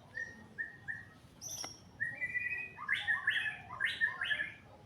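Small birds chirping: a few short repeated chirps, then a quicker run of chirping phrases in the second half. A single sharp click sounds about a second and a half in.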